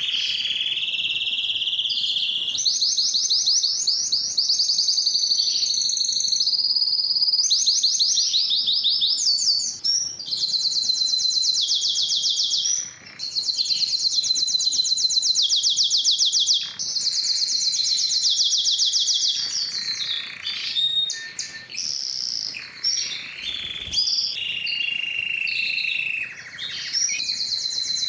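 Spanish timbrado canary singing a long, continuous song of rapid trills and rolls. It switches from one phrase to the next every second or two, with a few brief pauses.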